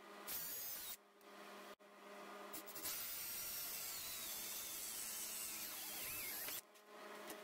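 Cordless drill boring holes through the generator's metal frame for the gas regulator mounting. A short run comes first, then a longer one of about five seconds, and the motor whine dips in pitch shortly before it stops.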